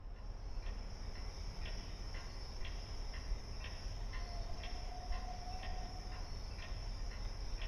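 A wall clock ticking steadily, about two ticks a second, over a steady low background noise.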